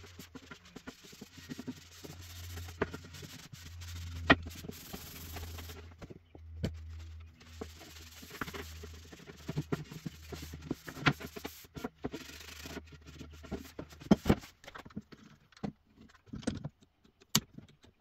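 Light rubbing and scraping with scattered sharp knocks and clicks, typical of hands working a walnut board at the bench, over a low hum that stops about 14 seconds in.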